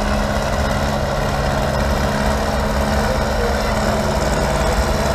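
Tractor engine running at a steady speed: a low, even engine hum with no change in pitch.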